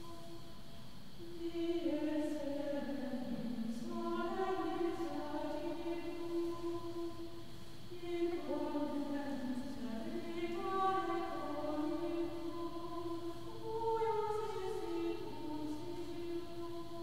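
Church choir singing a slow hymn in long phrases over a steady held note, with a short lull near the start before the voices come in.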